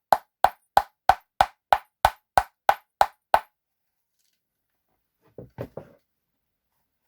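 Beech wooden heels of a pair of flamenco shoes clapped together, a sharp, even clack about three times a second, stopping about three and a half seconds in. A few soft, duller knocks follow about five and a half seconds in.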